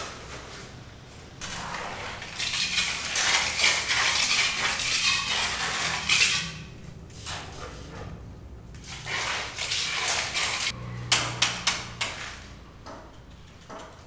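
Hand work on a building site: two long bouts of rasping scraping, then a quick run of sharp clinks near the end.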